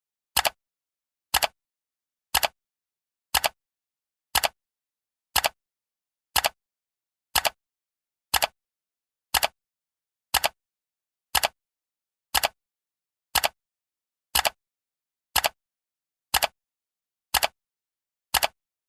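Countdown timer's ticking sound: one short, sharp clock-like tick every second, evenly spaced, with silence between ticks.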